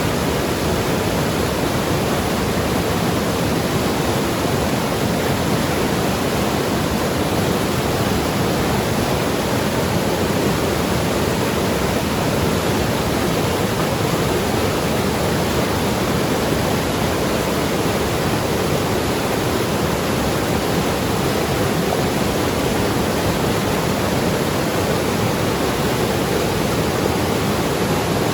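Mountain river rushing and gurgling over rocks in a steady, even roar of water.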